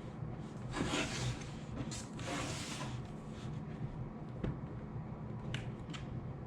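Handling noises: two rubbing, scraping sounds, then a few light clicks, over a steady low hum.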